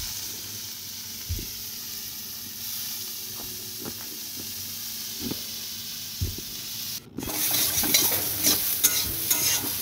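Chopped potato, yardlong beans and carrot sizzling in oil in a metal kadai, with a few light knocks against the pan. After about seven seconds a spatula starts stirring and scraping the vegetables around the pan, with a louder sizzle and many quick clicks.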